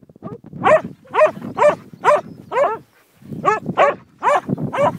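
Dog barking repeatedly, about two short barks a second with a brief pause about three seconds in.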